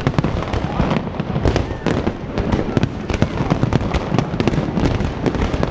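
Fireworks display: a continuous, rapid barrage of overlapping bangs and crackles with no break.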